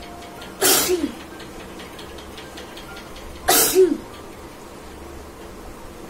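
A woman sneezing twice, about three seconds apart. Each sneeze is a sharp rush of breath ending in a short voiced cry that drops in pitch.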